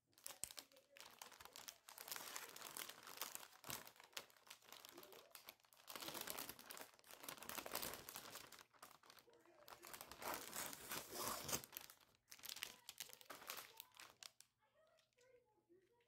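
Clear plastic flower sleeve and paper wrapping of a tulip bouquet crinkling as it is handled and pulled off, in several long bursts with brief pauses, stopping shortly before the end.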